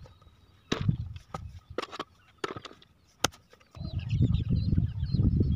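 Digging in dry, clumpy soil: a hand hoe knocks about six times as clods drop into a metal pan, in the first three seconds or so. Near four seconds in a loud low rumble takes over.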